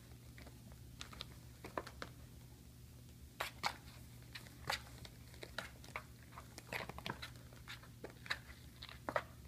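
Irregular crinkling and crackling of a cardboard box as kittens scrabble at it, climb in and shift around inside, sparse at first and thicker from about three and a half seconds in. A steady low hum runs underneath.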